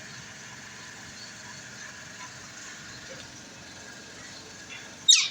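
Faint steady hiss, then near the end a sudden loud, shrill screech with a fast falling sweep from a green rose-ringed (ring-necked) parakeet.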